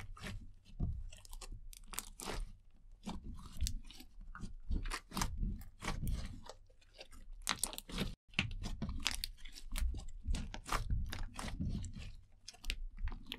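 Clear slime with eyeshadow mixed in being squeezed, kneaded and stretched by hand: wet squelching with a dense, irregular run of sharp clicks and pops. The sound drops out briefly about eight seconds in.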